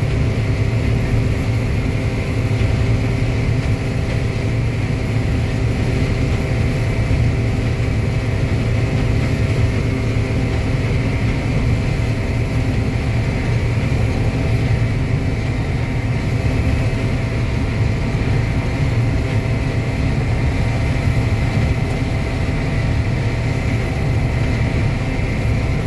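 Combine harvester running steadily while harvesting corn, heard from inside the cab: a constant low engine drone with steady whining tones from the machine's drives above it.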